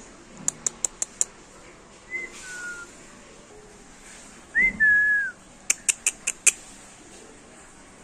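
Female Alexandrine parakeet whistling and clicking: a quick run of about five sharp clicks, a short soft whistle, a louder whistle that falls slightly, then another run of about five clicks.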